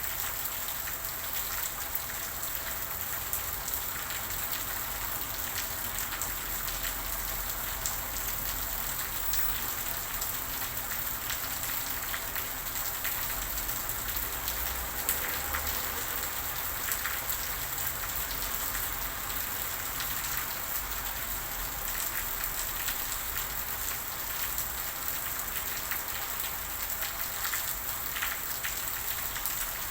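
Steady rain falling, with many small drops pattering and ticking on a surface.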